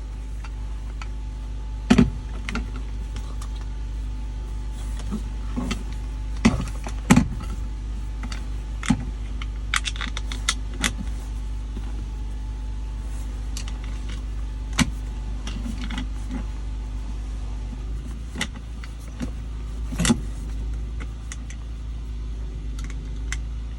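Irregular metallic clinks and knocks of tools and bolts being handled as bolts are pulled out of a vehicle's brake assembly, over a steady low hum. The sharpest knocks come about 2, 6 to 7, 15 and 20 seconds in.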